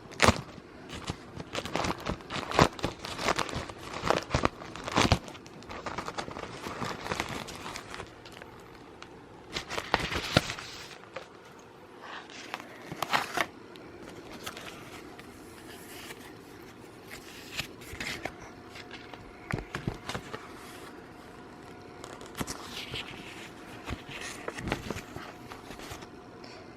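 Packaging being handled during an unboxing: paper and plastic crinkling and rustling in irregular bursts, with scattered sharp clicks and knocks of items and cardboard being moved.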